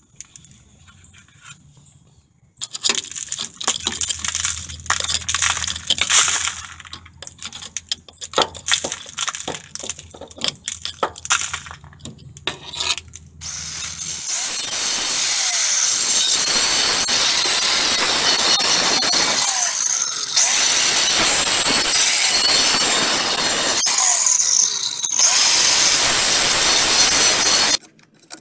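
Irregular scraping and knocking on rusted steel for about ten seconds, then an angle grinder cutting into the rusted steel cab mount and frame of a pickup truck: a loud, steady grinding that shifts level a couple of times and stops briefly near the end.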